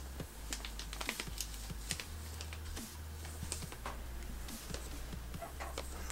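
Scattered light clicks and soft rustles of packaging being handled while an audio interface is unboxed, over a faint steady low hum.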